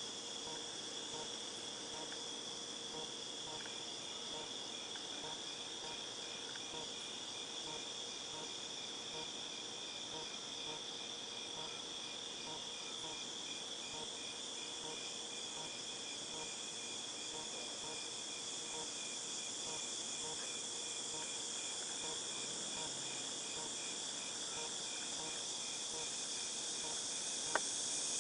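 Chorus of cicadas making a steady, high-pitched buzz, with a faint, regular pulsing beneath it. The chorus grows louder near the end, and a single click sounds shortly before the end.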